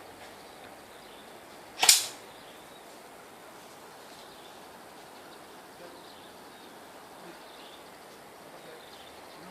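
A single sharp shot from an airsoft gun about two seconds in, over a steady faint background hiss.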